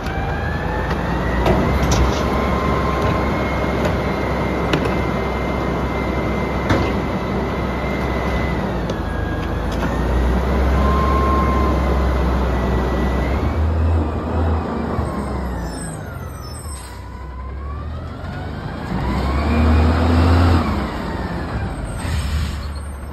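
Autocar Xpeditor garbage truck running, with a high whine over the engine and a few sharp clanks as trash cans are emptied into its front container. From about 14 seconds the whine drops in pitch, then climbs again with the engine as the truck pulls forward.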